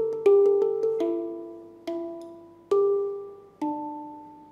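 Steel handpan played with the fingertips: single notes struck about once a second in a slow melody, each ringing out and fading before the next.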